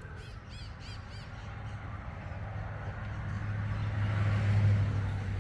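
A bird calling outdoors, a quick run of about six high chirps in the first second or so. A low steady hum underneath grows louder toward the end.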